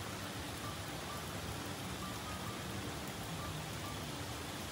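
Steady rain falling on a wooden deck and paved patio.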